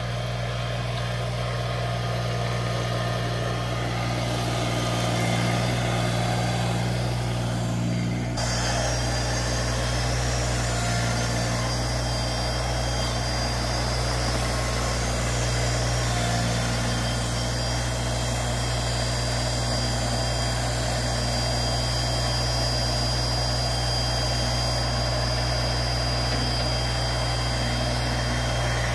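LS MT125 subcompact tractor's three-cylinder diesel engine running steadily while its front loader works dirt, with a thin, steady high whine over the engine; the sound changes abruptly about a third of the way in.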